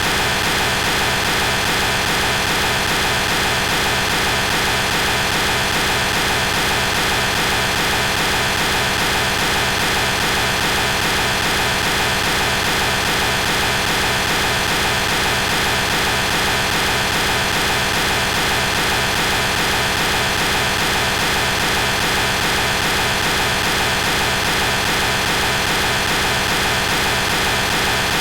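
A heavily processed 'G major' style sound effect: a loud, steady wall of hiss-like noise with faint held tones running through it, unchanging throughout.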